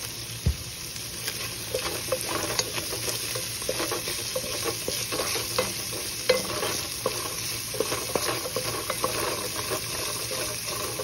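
Ground pork, onion, ginger and garlic sizzling in oil in a nonstick pan as they sauté toward golden brown, with a wooden spoon stirring and scraping against the pan in irregular clicks. A dull knock comes about half a second in.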